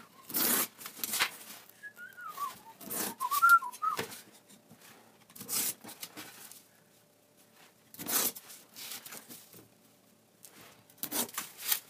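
Utility knife drawn along a steel ruler, slicing through foam board in short scraping strokes a couple of seconds apart. Between about two and four seconds in, a person whistles a few notes.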